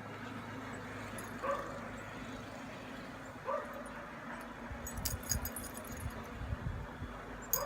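A dog whimpering in three short, rising whines spread a couple of seconds apart, with some rustling and low thumps in between.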